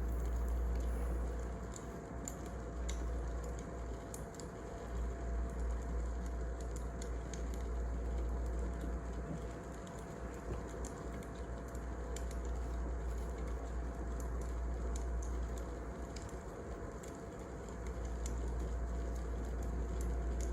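Wood fire crackling: scattered sharp pops and snaps over a steady low rumble, with a faint steady tone underneath.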